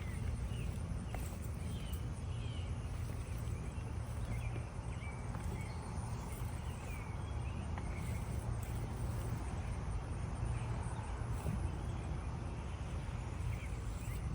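Outdoor garden ambience: birds chirping faintly and repeatedly over a steady low rumble, with a few faint clicks.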